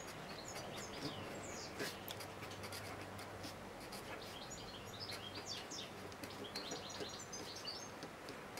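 Red felt-tip pen writing on paper: faint scratching strokes with many short, high squeaks of the tip on the page.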